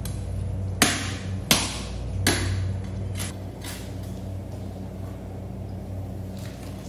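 A heavy fish knife striking into a giant bluefin tuna: three sharp chops about three quarters of a second apart, then a couple of fainter ones, over a steady low hum.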